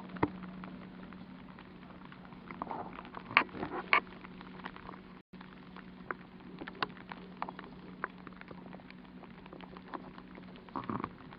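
Rain dripping and pattering in scattered drops over a steady low hum, with a few louder knocks about three to four seconds in.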